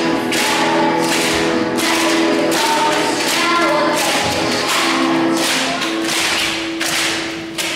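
Music with a steady beat of bright percussion strokes, about two a second, over sustained held tones; it eases off near the end.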